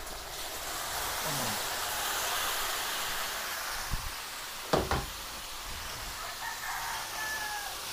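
Marinated beef chunks tipped into a large aluminium wok of hot tomato sauce, hissing and sizzling. About four and five seconds in, a few sharp metallic clanks as the emptied steel bowl is set down on the steel counter.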